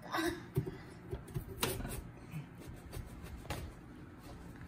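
Kitchen knife cutting into a whole watermelon on a wooden cutting board, with a few scattered soft knocks and crackles as the blade works through the rind.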